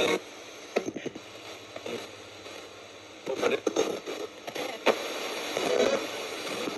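Ghost box: a radio sweeping through stations, a steady hiss of static broken by short choppy bursts of broadcast fragments, the longest run of bursts from about three to five seconds in.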